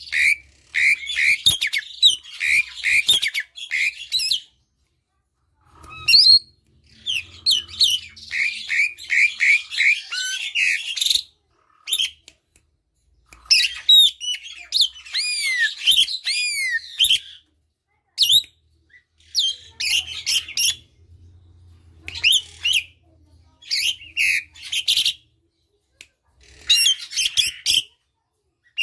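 Javan pied starling (jalak suren) singing at close range: phrases of harsh chattering squawks and whistled notes, a few seconds each, broken by short pauses, with a run of rising-and-falling whistles about halfway through.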